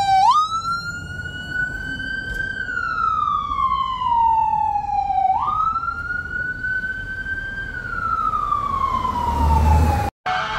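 Fire truck siren wailing through two slow cycles, each a quick rise in pitch followed by a long slide back down, over the low rumble of the truck. The sound cuts off abruptly near the end.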